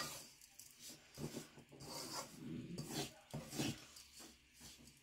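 Spatula stirring and scraping ground flaxseed as it fries in ghee in a metal kadhai: a run of faint, irregular rubbing strokes against the pan.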